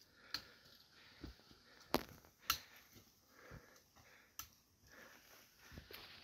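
Footsteps and trekking-pole taps on a steep dirt mountain trail: a few sharp, irregular clicks and knocks, with soft breathing between them.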